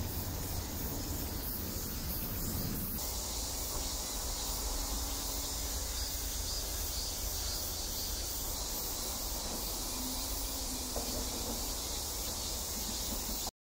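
Steady high-pitched insect chorus over a low outdoor rumble, growing brighter about three seconds in and cutting off suddenly near the end.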